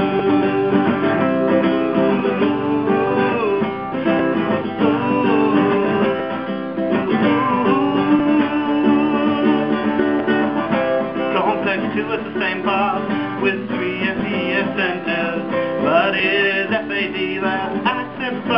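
Acoustic guitar strumming chords under a man singing.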